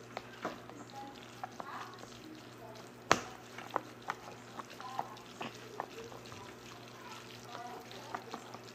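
Fork stirring and lifting sauced noodles in a plastic container, with scattered light clicks of the fork against the container and one sharper click about three seconds in.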